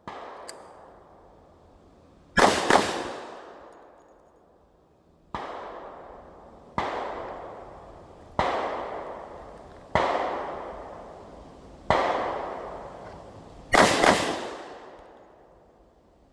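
Handgun shots fired at a target after a draw from concealment: a quick pair, then five single shots about one and a half seconds apart, then another quick pair, each ringing out in a long echoing decay. A light click comes just before the first shots.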